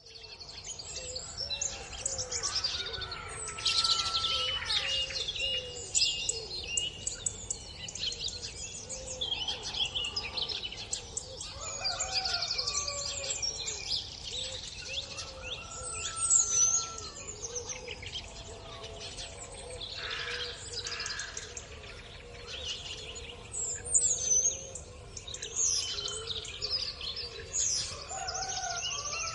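Many birds chirping and calling at once in a dense, continuous chorus of short high chirps, with a lower row of wavering calls running under it.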